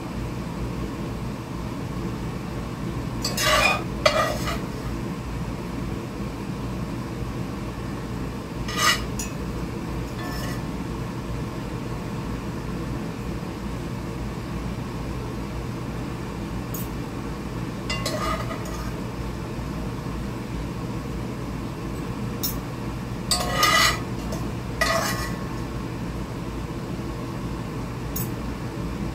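A metal utensil clinking and scraping against a cooking pot as cooked cabbage leaves are lifted out, in scattered clinks a few seconds apart, over a steady low hum.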